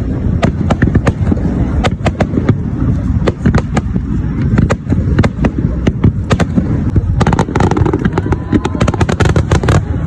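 Fireworks going off in quick succession: many sharp bangs and crackles over a continuous low rumble of booms. The crackling thickens from about seven seconds in.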